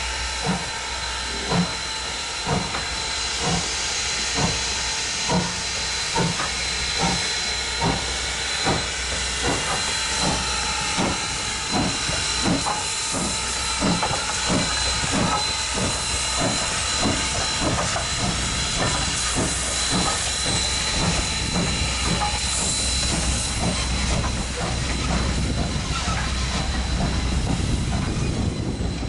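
Norfolk & Western 4-8-0 steam locomotive No. 475 working hard as it passes, its exhaust chuffing in a regular beat over a constant hiss of steam. The chuffs come closer together in the middle. Near the end the rumble of the passenger cars' wheels on the rails grows as the train rolls by.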